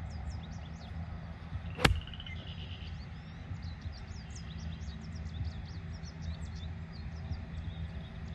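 A golf club strikes a ball once, a sharp crack about two seconds in, with birds chirping around it.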